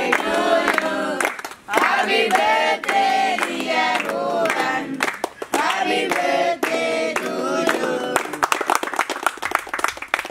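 A group of boys singing a Tamil song together in unison while clapping along. The singing stops about eight seconds in and the clapping goes on, fast and irregular, as applause.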